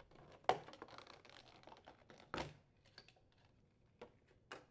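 Faint handling clicks and scratchy rustling as a screwdriver backs out the screw on a refrigerator's plastic upper hinge cover and the cover is pulled off. There is a sharper click about half a second in, another about two and a half seconds in, and two small ticks near the end.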